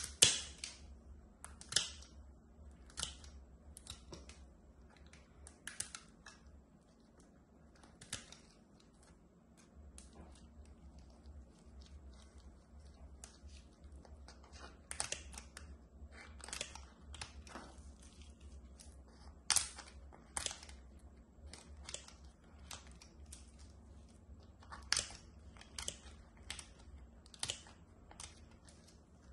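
Metal snips cutting through a thick, crusty, overgrown toenail: a string of short, sharp snips and crunches at irregular intervals, the loudest at the very start.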